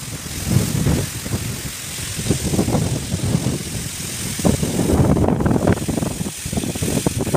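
Gale-force storm wind buffeting the phone's microphone in irregular gusts, a loud rumble that comes and goes and is strongest about two-thirds of the way through, over a steady high hiss of the wind.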